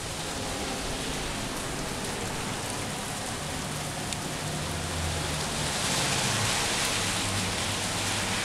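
Steady rain falling, an even hiss of drops on outdoor surfaces.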